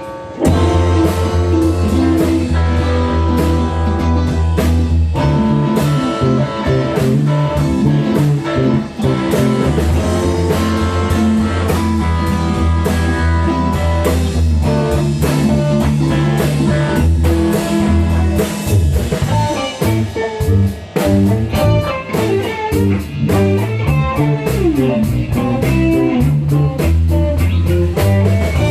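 Blues-rock band music: electric guitar over bass and a drum kit keeping a steady beat, coming in loud right at the start.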